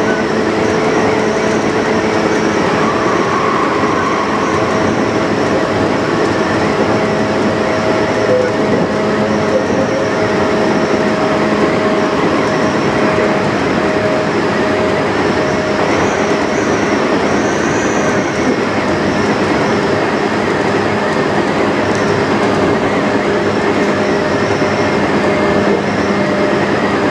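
Tokyu 8500 series electric train running, heard from its motorized lead car: steady traction-motor and gear hum over the noise of the wheels on the rails, with a faint high whine that wavers slightly.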